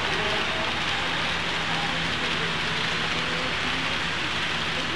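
Model train running on a layout: a steady rushing hiss with a low hum underneath, and faint voices in the background.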